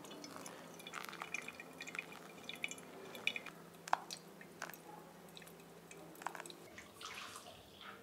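Faint dripping and trickling of water and coffee during pour-over brewing, with a few light clicks and ticks.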